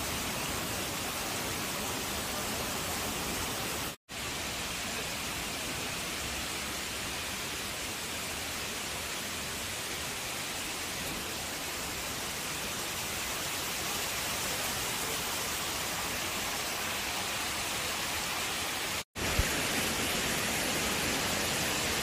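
Steady rushing of water from a waterfall stream, a constant even hiss, broken twice by a split-second dropout.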